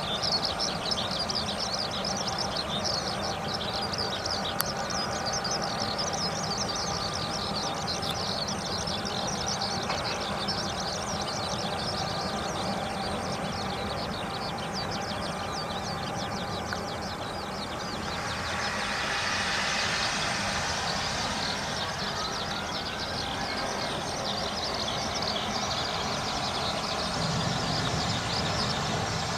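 Outdoor airport ambience: a steady low rumble under dense, high, rapid chirping. From about 18 seconds a distant jet airliner's rush swells up, with faint gliding engine whine.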